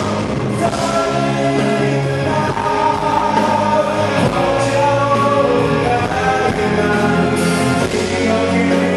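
Male singer singing a Korean pop song live over full band accompaniment.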